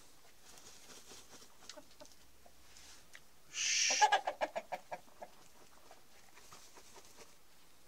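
Chickens in a coop: about halfway through, a short rush of rustling, then a rapid run of short clucking squawks that fades within about a second, as the rooster mounts a hen.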